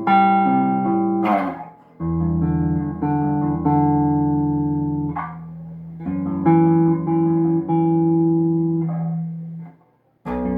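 Golden electric bass guitar played unaccompanied in held notes and chords. Short phrases are broken by brief stops, with a moment of silence shortly before the end.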